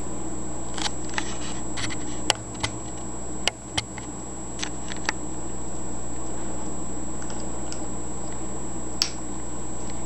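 African grey parrot's beak working at a banana and its peel on a hard counter: scattered sharp clicks and taps, most in the first five seconds and one more near the end, over a steady background hum.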